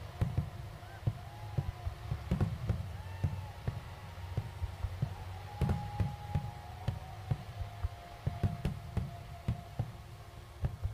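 Fireworks display: a rapid, irregular string of bangs and deep booms from bursting shells, with faint whistling tones over them for a few seconds in the middle.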